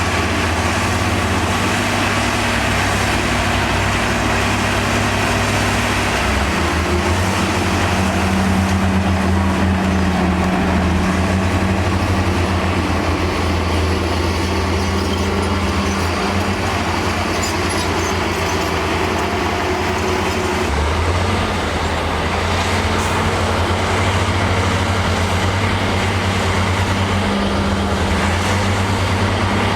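Heavy diesel engine of earth-moving machinery running steadily. Its engine note shifts a few times as the revs change.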